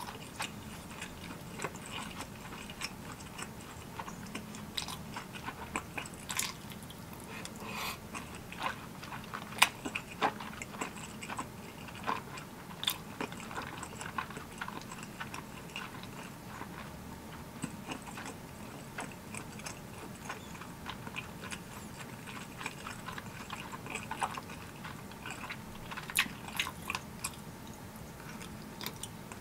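Close-miked chewing of spicy tteokbokki: soft wet smacks and mouth clicks, with a few sharper clicks scattered through.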